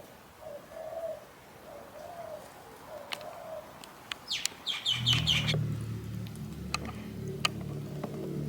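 A dove cooing in a repeated series of soft, low, arching notes, then a short burst of high bird chirps. From about five seconds in, a steady low hum sets in.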